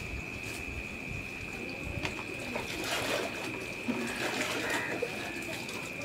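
Outdoor ambience with birds calling, over a steady high-pitched whine.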